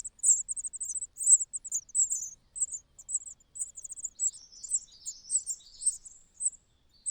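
Young birds making high-pitched chirping calls: quick trilled notes repeated in irregular clusters throughout, with a few falling chirps a little past the middle.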